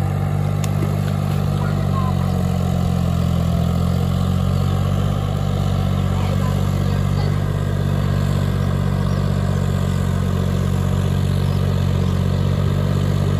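Farmtrac 6050C tractor's diesel engine running with a steady low drone as it cultivates a muddy paddy field.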